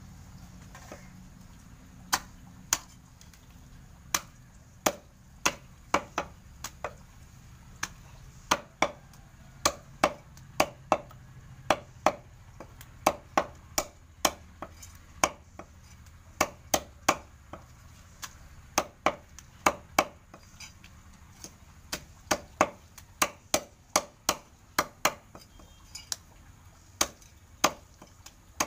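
Butcher's cleaver chopping a chicken on a wooden log chopping block: sharp, repeated chops, roughly two a second in uneven runs, beginning about two seconds in.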